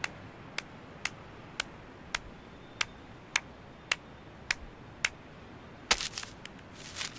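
Cartoon footstep sound effects: sharp, evenly spaced steps about two a second. Near the end comes a quick flurry of clicks, then a papery rustle.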